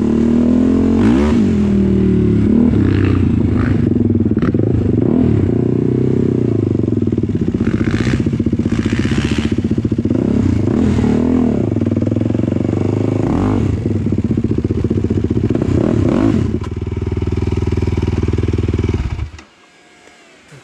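Quad ATV engine running and revving up and down along a rough dirt trail, with knocks and clatter as it bounces over bumps. The engine shuts off abruptly near the end.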